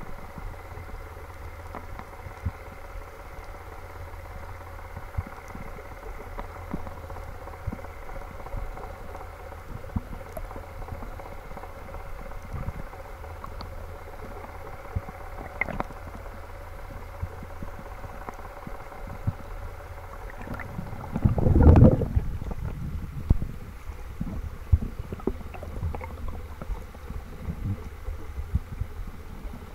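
Underwater sound picked up by a spearfisher's camera: a steady low hum with a few held tones, typical of a boat engine carried through the water, with many small scattered clicks. About two-thirds of the way through comes a loud, brief gurgling rush of water and bubbles.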